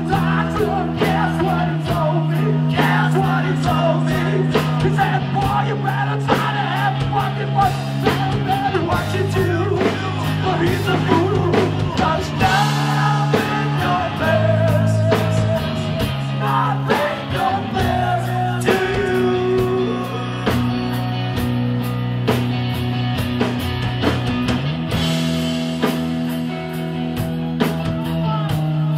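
A two-piece rock band playing live and loud: electric guitar over a drum kit. Sustained low guitar notes and a wavering melodic line sit under regular drum and cymbal hits.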